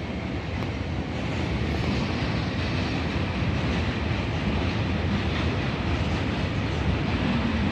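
A train running along the tracks through a station, a steady, unbroken rumble.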